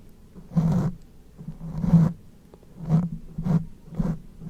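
Close-miked ASMR mouth sounds: a string of about five short, wet bursts with brief gaps between them.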